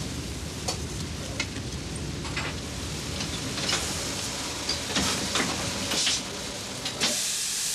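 Laundry steam presses at work: a steady machine hum with scattered clunks and clicks, and repeated bursts of steam hissing that turn into a steady hiss near the end as the hum drops away.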